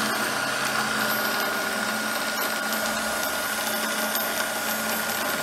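Cuttermaster MG-30 tool grinder running steadily on its 1/3 hp single-phase motor with the bare wheel mount spinning. There is an even hiss with a steady high whine over it.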